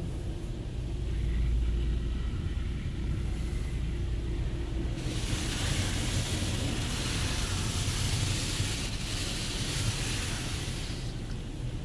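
High-pressure water jets of a Ryko Radius touchless car wash spraying onto a van, heard from inside the cabin: a low rumble for the first few seconds, then a loud, even hiss of spray hitting the glass and body from about five seconds in, easing off near the end.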